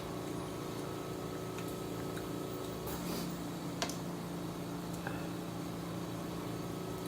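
A steady low hum with a few short clicks, about three seconds, four seconds and five seconds in. They are the small utensil and bowl sounds of eating soup.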